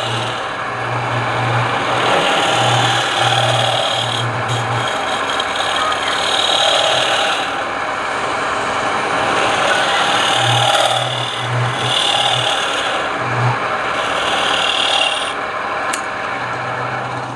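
Wood being worked on a running woodturning lathe: a steady rasping scrape against the spinning piece, with a low hum that comes and goes and the scrape swelling and easing every second or so.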